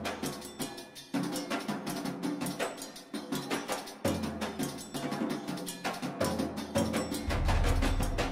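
Background music driven by quick, even percussion hits, with a low bass that comes in strongly about seven seconds in as the music grows louder.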